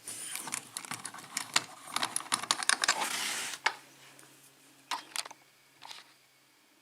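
Small metallic clicks and rattles of a padlock and lock-picking tools being handled, busy for about three and a half seconds, then a few separate clicks.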